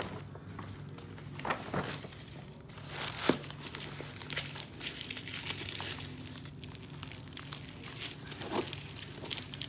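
Tissue paper and a paper gift bag crinkling and rustling in irregular bursts as a wrapped gift box is handled and lifted out.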